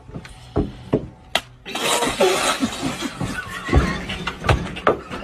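A few sharp knocks, then from about two seconds in a loud burst of noise with excited shouting and laughter from a small group.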